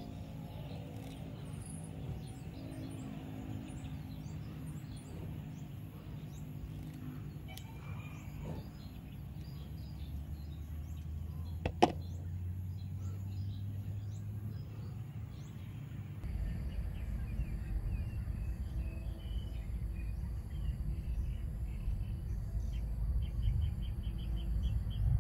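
Steady low background rumble with faint, scattered high chirping, and a single sharp click about halfway through; the rumble grows louder about two-thirds of the way in.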